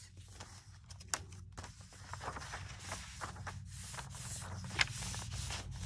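Paper pages of a junk journal rustling and being turned by hand, with scattered soft clicks and taps and one sharper click near the end.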